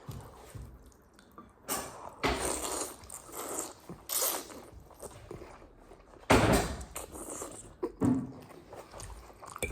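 Eating sounds from a bowl of noodle soup: several short slurps and mouth noises, the loudest about six seconds in.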